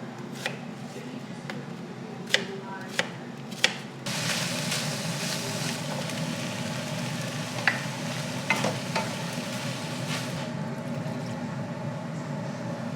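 A few sharp knocks of a utensil, then food sizzling in a frying pan from about four seconds in until near the end, with a couple more clinks while it sizzles.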